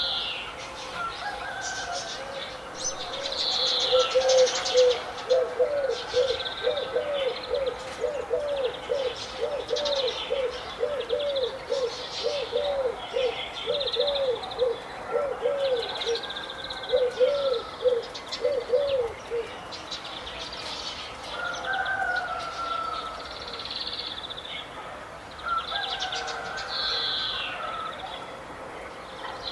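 Several birds chirping and calling, with short high chirps and trills throughout. Under them a low call repeats evenly, about two notes a second, from a few seconds in until past the middle, then stops.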